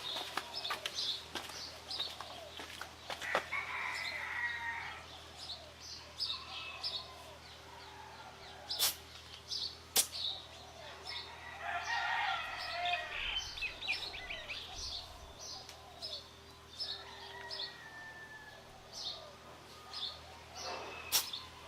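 Roosters crowing a few times, with small birds chirping throughout and a couple of sharp clicks.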